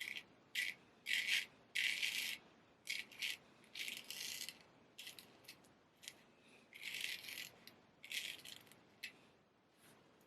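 A straight razor making a quick series of short, crisp scraping strokes, some single and some in rapid pairs, at an uneven pace.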